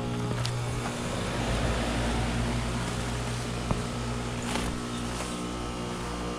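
Ameristar M4HP4 heat pump outdoor unit running in defrost mode: a steady low compressor hum under a steady hiss, with one sharp tick about halfway through.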